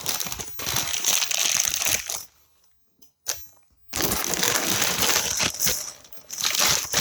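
Packing material crinkling and rustling as it is handled, with light knocks, in two spells: over the first two seconds and again from about four seconds in to about six.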